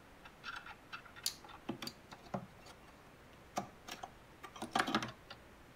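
Scattered small clicks, taps and light scrapes as a small circuit board in a plastic enclosure is handled and slid into place inside a Bang & Olufsen Beogram 4002 turntable's chassis, with the loudest taps near the middle and toward the end.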